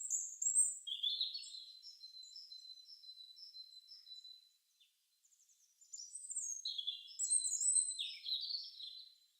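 Small birds chirping: a run of short high notes repeated about twice a second, a pause, then a louder cluster of chirps near the end.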